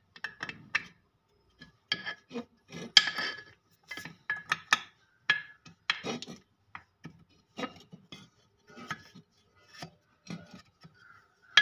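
Connecting rods of an AR high-pressure washer pump clinking and scraping against the metal crankcase as they are pushed into place by hand. A string of irregular short metallic clicks and knocks, some with a brief ring.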